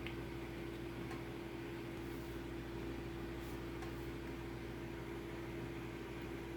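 A few faint light clicks of a metal ice pick picking lime buildup out of a sprayer head's holes, over a steady hum.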